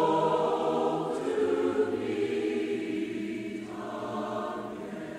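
Background music of a choir singing long held chords, changing chord about a second in and again near 4 s, slowly fading.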